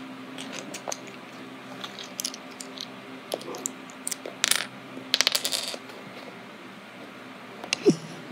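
Light clicks and clinks of small hard objects on a wooden floor. A quick run of rattling clicks comes about five seconds in, like a small metal piece dropped and settling, and a sharp clack comes near the end.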